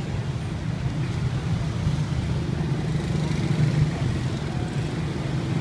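Steady low engine hum and rumble of motor traffic on a city street.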